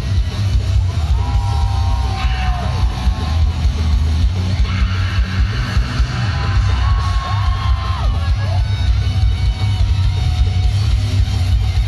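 Live heavy rock music over a festival PA: loud bass and drums, with a singer's voice holding and bending long notes twice.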